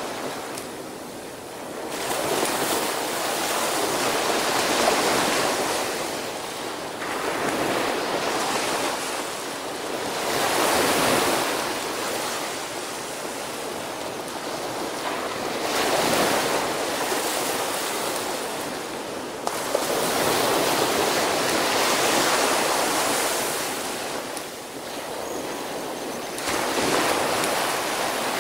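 Small Atlantic waves breaking and washing up a sandy beach, the rush of water swelling and falling back about every five or six seconds.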